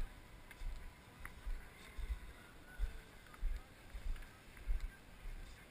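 Footsteps crunching across snow, heard through the body-worn camera as low thuds a bit under two a second, over faint distant crowd chatter.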